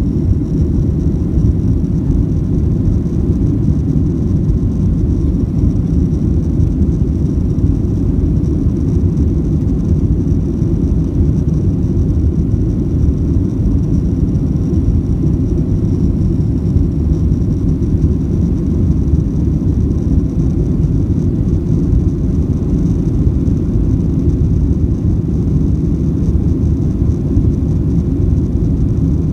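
Steady cabin rumble of a Boeing 737-700 in flight, from its CFM56 jet engines and airflow, with a faint steady high whine above it.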